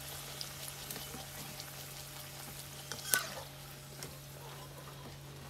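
Flatbread deep-frying in hot oil in a steel wok, a steady sizzle flecked with small crackles. About three seconds in, the slotted metal ladle gives one sharp clink against the wok.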